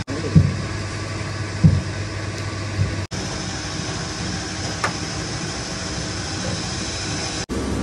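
A steady low mechanical hum over background noise, with three short dull thumps in the first three seconds. The sound drops out for a moment twice, at about three seconds and near the end.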